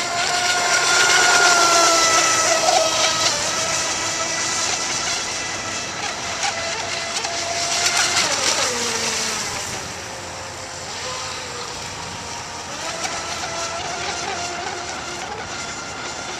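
Radio-controlled speedboat's motor running at speed, a high steady whine. About eight seconds in the pitch drops as the boat slows, and the whine picks up again a few seconds later.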